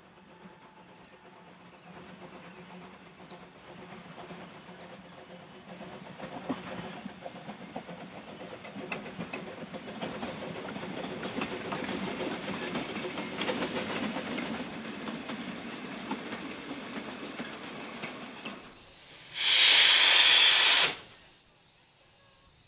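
Narrow-gauge Quarry Hunslet 0-4-0 saddle-tank steam locomotive working a goods train past, growing louder as it approaches and passes. Near the end comes a loud rush of hissing steam lasting about two seconds.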